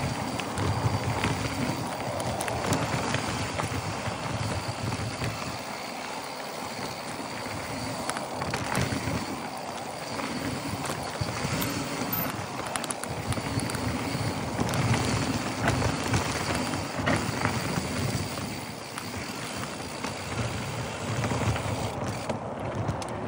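Mountain bike riding down a dry dirt trail: knobby tyres rolling over dirt and leaves, with frequent rattles and knocks from the bike over bumps.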